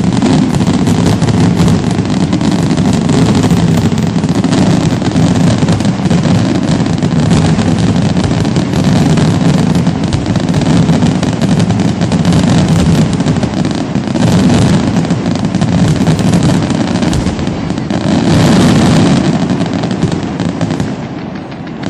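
Fireworks display: a dense, continuous barrage of rapid overlapping bangs and crackling shell bursts, easing off just before the end.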